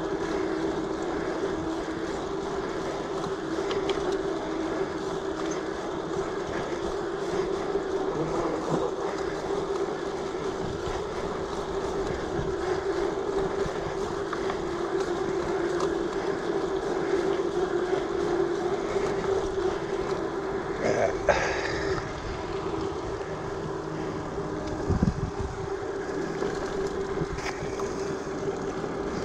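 Steady rolling hum of mountain bike tyres on an asphalt path. A brief rattle comes about three-quarters of the way through, with a low thump shortly after.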